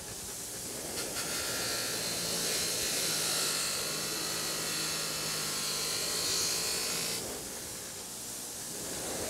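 Bench grinder's wire wheel running steadily, with rusty hammer steel pressed against it from about a second in, giving a bright scraping hiss as the wire strips the rust. Near the end the work comes off the wheel and only the grinder's motor is left running.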